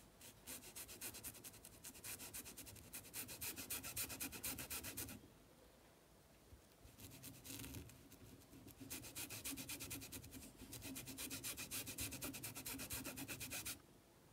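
Flat paintbrush scrubbing sepia paint onto fabric stretched on a board, in quick back-and-forth strokes. Two long spells of rapid rubbing, with a pause and a short bit of brushing in the middle.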